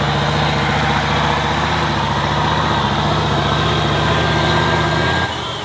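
Off-road trial truck's diesel engine running at steady revs, a low even rumble that cuts off abruptly near the end.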